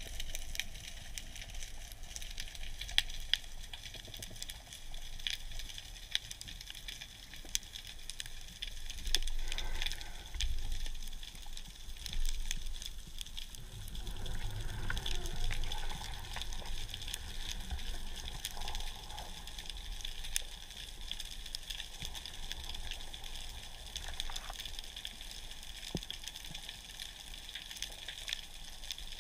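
Underwater ambience: a steady, dense crackle of small clicks, with a few low swishing rumbles midway from water moving past the camera.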